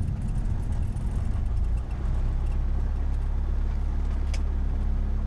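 Cessna 172's single piston engine and propeller running steadily, heard as a low, even drone inside the cabin; the drone settles to an even steadier note about two seconds in. A faint short click comes about four seconds in.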